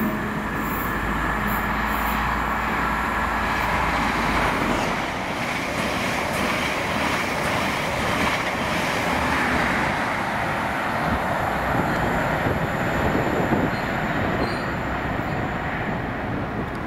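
A train passing close by on the main line: a long, steady rush of wheel and rail noise, with a low steady hum in the first few seconds.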